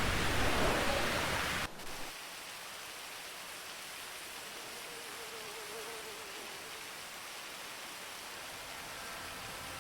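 Rain: a loud, heavy rush with deep low end that cuts off abruptly under two seconds in, giving way to a quieter, steady hiss of rainfall.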